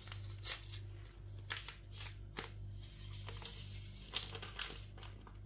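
Faint rustling, tearing and light tapping as a small paper sachet of vanilla is opened and emptied into a blender jug, over a steady low hum.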